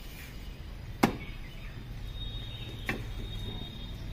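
Two sharp metal knocks about two seconds apart, the first much louder: a flat iron turner striking the iron tawa (griddle) while a roti is turned.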